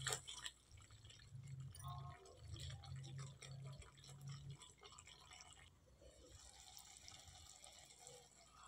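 Faint plopping and bubbling of a thick onion-tomato masala simmering in a kadai, at the stage where its oil starts to separate. A spatula stirs and scrapes the pan near the start, and a low hum runs under the first four seconds or so.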